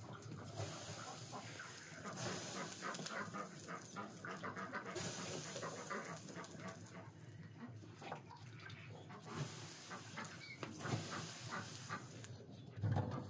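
Wood fire crackling inside a clay tandoor, with stretches of hissing about two seconds in and again past the middle as water is flicked from a bowl onto the hot inner walls.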